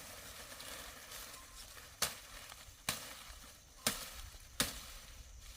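A steady sizzling hiss with four sharp knocks, roughly a second apart, in the second half.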